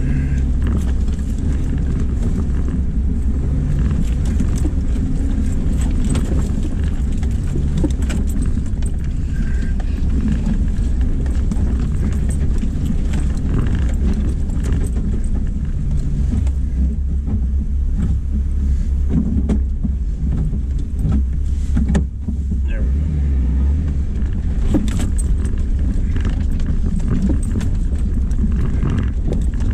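Jeep engine running in low gear as it crawls over a rough dirt trail, a steady low rumble with scattered rattles and knocks from the vehicle bouncing over bumps.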